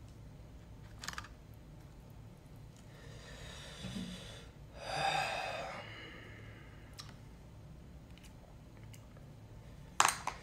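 Quiet table-side handling sounds: chopsticks clicking against plastic food containers, a few scattered clicks with a louder sharp one near the end, and a brief soft rustle about halfway through.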